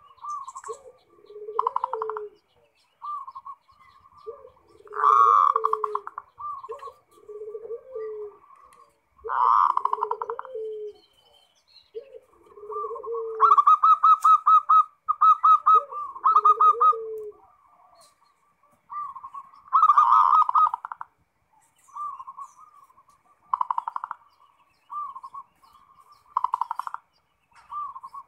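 Zebra doves (perkutut) cooing: bursts of rapid trilled coos recur, the longest and loudest about halfway through, while a second, lower repeated coo runs alongside until about two-thirds of the way in.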